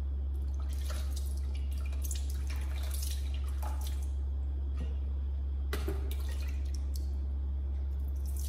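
Water splashing and dripping in plastic basins as a small monkey is washed and a hand stirs the water, in short irregular splashes with the sharpest about six seconds in. A steady low hum lies under it all.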